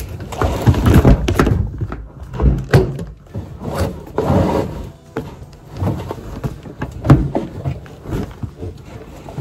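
A plastic laundry basket being handled at close range: irregular knocks and thuds of the basket, with rustling of clothes as they are pulled out of it, loudest around the first second and again about four seconds in.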